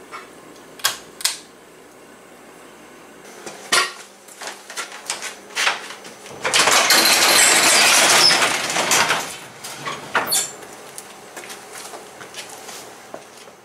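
Sectional garage door being pushed open by hand: a loud metallic rattle of the panels and rollers running in their tracks, lasting about three seconds. It comes after a couple of sharp clicks from a light's pull-chain switch and some scattered clattering.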